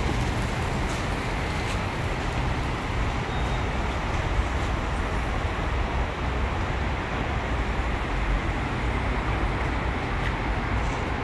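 Steady rumble of nearby road traffic, an even low-heavy noise with no distinct events.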